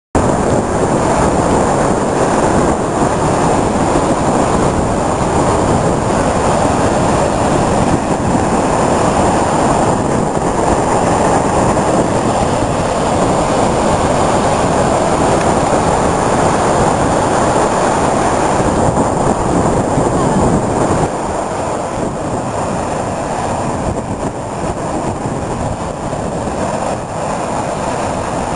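Heavy surf from a storm-driven sea breaking on rocks and a seawall: a steady, dense roar that eases a little about 21 seconds in.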